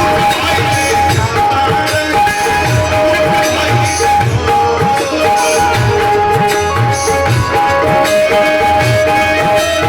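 Live instrumental music from the stage band: a steady drum beat under a sustained, held melody line, played between sung verses of a Bhojpuri sohar.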